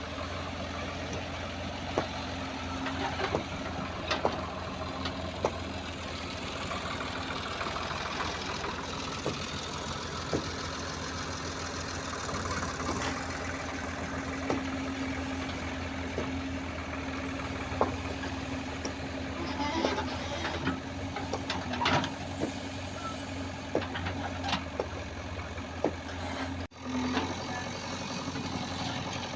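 A JCB digger's diesel engine running steadily, with scattered sharp knocks and clanks throughout. The sound cuts out briefly near the end.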